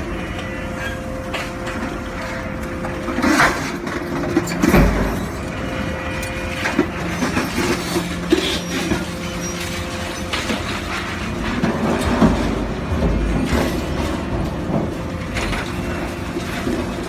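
Hydraulic scrap-metal press running, a steady machine hum with irregular heavy metal clanks and knocks as scrap is handled and compressed.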